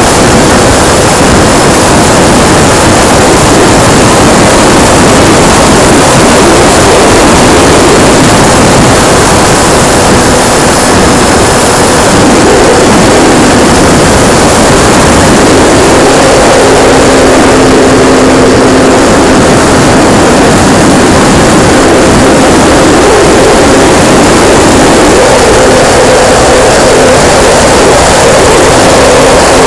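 Radio-controlled P-51D Mustang model's motor and propeller heard from a camera mounted on the plane in flight, with heavy wind rush over the microphone. A faint steady engine tone sits under the noise and shifts a little in pitch partway through as the throttle changes.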